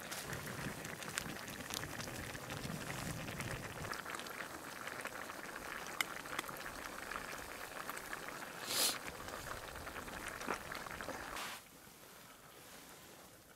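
Pot of soup bubbling at the boil, a steady crackling bubble with a few faint ticks and a brief hiss; the bubbling falls away abruptly near the end.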